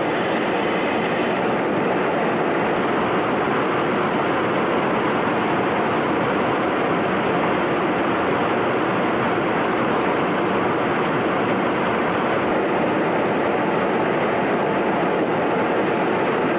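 Steady loud rush of airflow and jet engine noise inside a tanker aircraft's boom operator station, with a brief high hiss that stops about a second and a half in.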